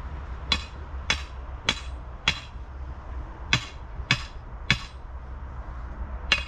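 Sledgehammer striking a metal stake to drive it into the ground at an angle: four sharp blows a little over half a second apart, a short pause, three more, then one more near the end.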